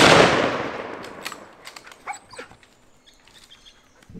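A .300 PRC rifle shot, its echo rolling away and fading over about a second and a half. A few faint clicks and short chirps follow.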